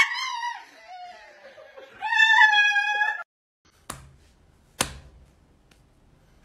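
Siberian husky screaming in high, wavering cries while held for a paw treatment that has not yet begun, a second long cry following about two seconds in before it cuts off. Two sharp taps follow, about a second apart.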